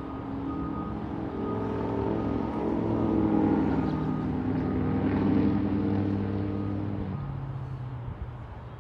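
Road traffic crossing the tracks: cars and a pickup truck driving past, over a steady engine drone that grows louder around the middle and drops lower about seven seconds in.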